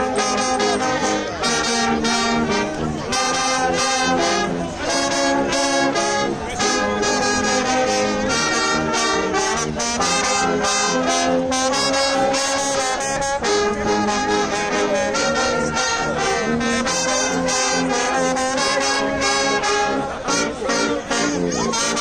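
Street brass band playing a tune together on trumpets, saxophones, a trombone, a baritone horn and a sousaphone.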